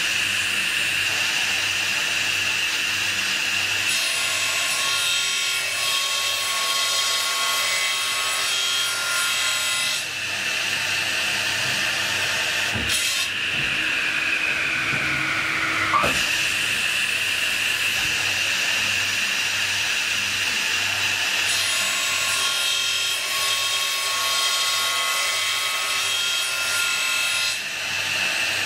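CNC circular cold saw cutting a bundle of solid aluminium bars: the blade runs with a steady high whine, and two cuts of about six seconds each add a dense, ringing grind. Between the cuts the whine sags in pitch and comes back, with a few sharp knocks.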